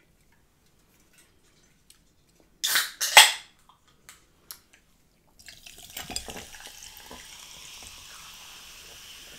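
Cream soda being opened, with two short loud hissing bursts about three seconds in. It is then poured over ice in a glass from a little past halfway: a few clinks and splashes, then a steady fizzing hiss of carbonation that carries on.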